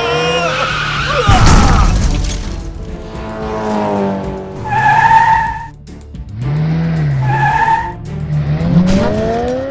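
Cartoon sound effects of a race car out of control: a short cry at the start, then tyres squealing and an engine revving in rising and falling glides. A loud crash comes a little over a second in. Background music plays underneath.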